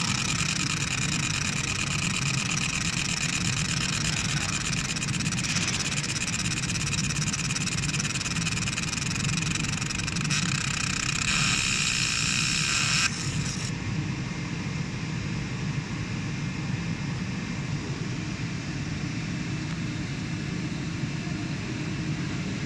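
Laser engraver running a fast raster engraving job: the head scans rapidly back and forth with a dense whirring buzz over a steady fan hum. About 13 seconds in, the scanning noise stops abruptly and only the steady fan hum carries on.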